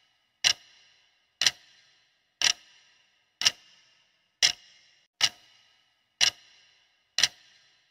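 Clock-tick sound effect for a quiz countdown timer: sharp single ticks, about one a second, eight in all.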